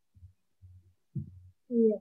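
A student's voice coming through an online video call, garbled and muffled into short, low, thudding bursts with gaps between them, with a brief clearer voiced sound near the end.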